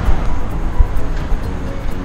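Background music over street noise from traffic, with a low rumble on the microphone.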